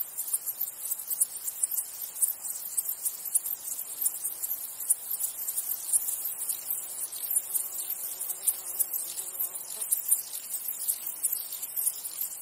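Chorus of stridulating insects: a steady, high-pitched chirring made of many rapid pulses.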